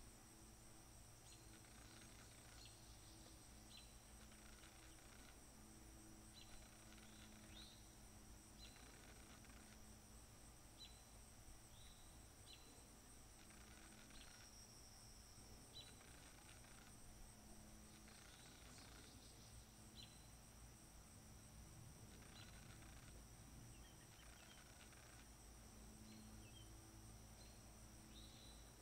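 Near silence: faint outdoor ambience of a steady high insect drone, with short high chirps every second or two.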